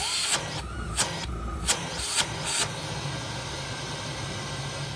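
Grundig VCC 9773 bagless canister vacuum cleaner running steadily at its maximum power setting, with several sharp clicks in the first three seconds. Right at the end its sound begins to drop as it is switched off.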